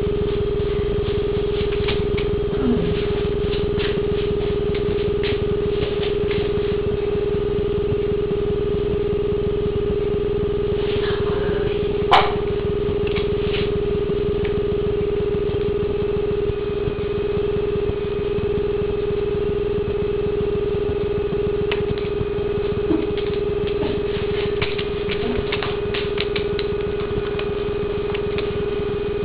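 Steady electrical hum on one pitch over a low hiss, with scattered faint ticks and one sharp click about twelve seconds in.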